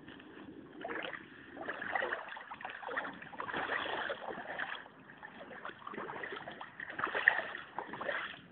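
Floodwater splashing and sloshing in a run of irregular surges.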